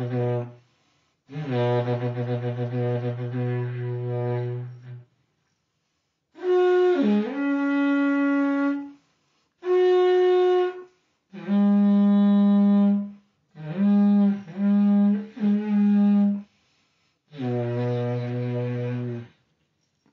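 A seven-foot length of PVC conduit blown like a horn: about seven held tones with short gaps between them. It starts on a low drone, jumps up to higher notes in the middle, some of them wavering and breaking, and ends on the low drone again.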